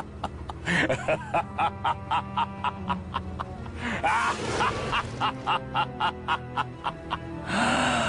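Background music with a steady beat of short plucked-sounding notes, about three a second.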